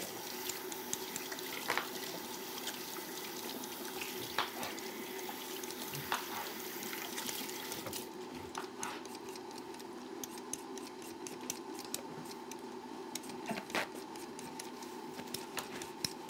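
Kitchen tap running, which stops about eight seconds in. After that, a knife clicks again and again against a cutting board as a watermelon is sliced.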